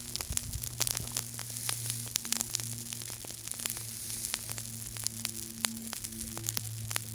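Small campfire crackling, with many sharp pops and snaps of burning wood over a low steady hum.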